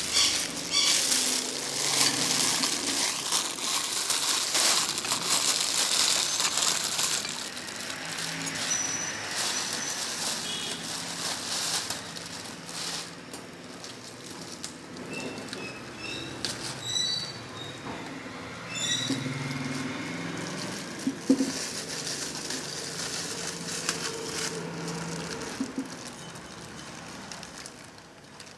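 Street-food stall clatter: a dense crackling hiss with dishes and utensils clattering, thinning out after about seven seconds into a quieter background broken by scattered sharp clinks.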